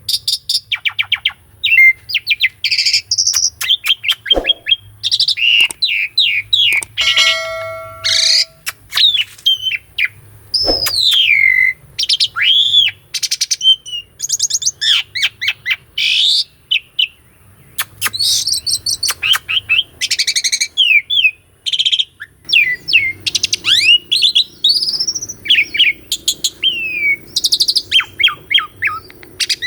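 Asian pied starling (jalak suren) singing a long, varied song of rapid chattering clicks and whistled notes that glide up and down, with a held whistle about seven seconds in.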